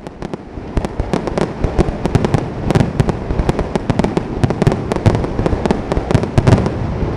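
Aerial fireworks display: rapid cracks and bangs, several a second, over a continuous low rumble, fading in over the first second.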